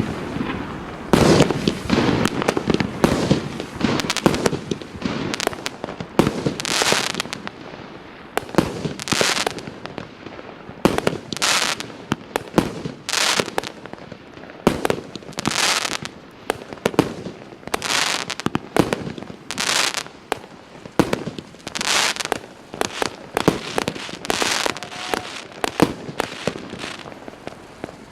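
FP-B301 Fiesta multi-shot firework going off: a steady run of sharp shots, one every second or less, with loud crackling bursts every couple of seconds.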